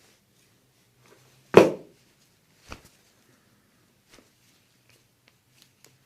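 A single loud thump about one and a half seconds in, then a fainter knock about a second later, made during a hands-on chiropractic treatment.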